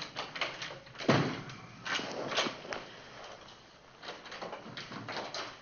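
A door opening and closing, with a loud thump about a second in and further knocks, then footsteps on a hard floor near the end.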